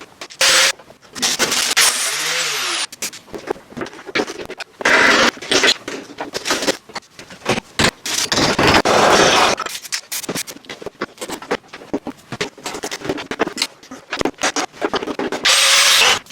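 Choppy, sped-up workshop sounds: tools scraping and rubbing, chopped into many short pieces that start and stop abruptly.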